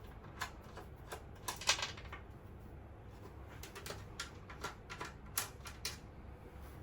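Light, scattered clicks and taps of a PC case's side panel being handled and taken off, about a dozen small knocks at irregular intervals.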